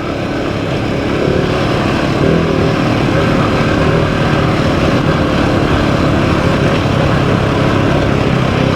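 GasGas ES700's single-cylinder engine pulling under way, getting louder over the first second or so and then holding steady.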